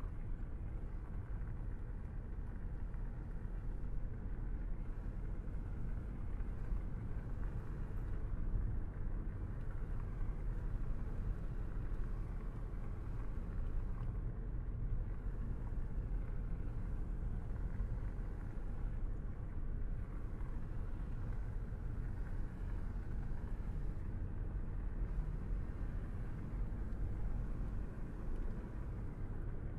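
A car driving steadily along the road, a low, even rumble of road and engine noise.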